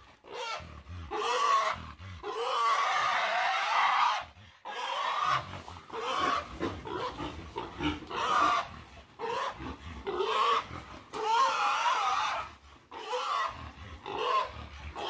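A domestic pig squealing in long, repeated bouts with short breaks while it is held and carried by hand.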